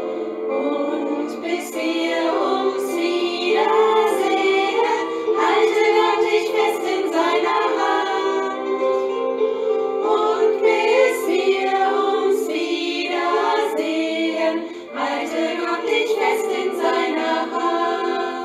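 Women's voices singing a German song together, a small choir, over held accompanying chords.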